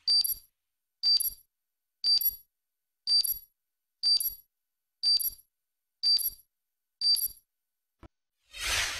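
Countdown clock sound effect: a short, high electronic tick-beep once a second, eight in all, each marking one second off the count. Near the end a whoosh swells up.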